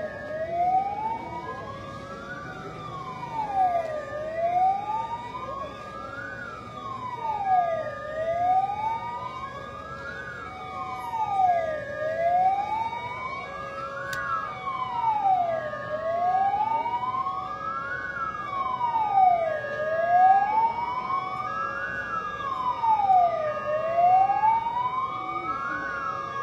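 Emergency vehicle siren wailing, its pitch rising and falling slowly in a full cycle about every four seconds.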